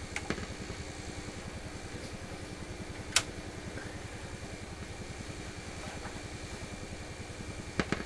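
PYE 39HC valve radio's loudspeaker giving a steady buzz over fast, soft low thumping, with sharp clicks as a capacitor is touched on and off across the audio circuit. The loudest click comes about three seconds in, and two more come near the end.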